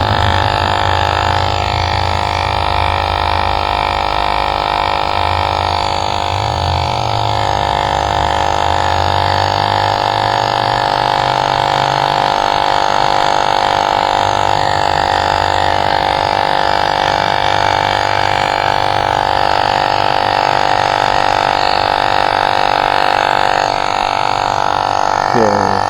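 Portable electric tire inflator running steadily, a loud, even motor-and-compressor drone as it pumps up the ebike's front tire to seat the bead.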